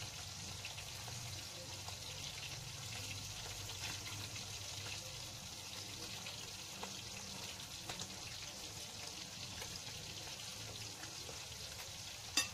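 Anchovy fritters (tortang dilis) sizzling steadily in hot oil in a frying pan, with a few sharp clicks near the end.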